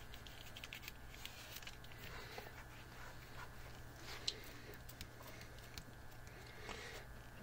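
Fingertips rubbing and pressing Kapton polyimide film flat on a 3D printer build plate to work out air bubbles: faint soft rubbing and light ticks, with one sharper tick about four seconds in, over a faint steady low hum.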